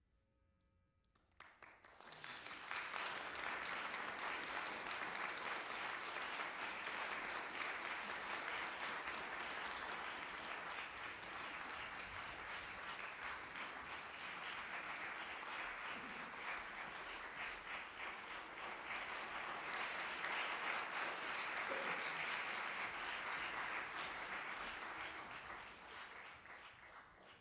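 Audience applauding, starting suddenly about a second and a half in, holding steady and fading near the end.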